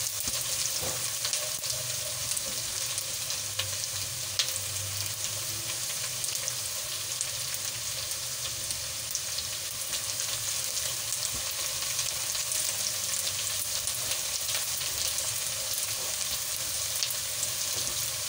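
Sliced onions sizzling as they fry in oil in a non-stick kadai, with the light scrape and tap of a spatula stirring them. The sizzle stays steady, with one sharper tick about four and a half seconds in.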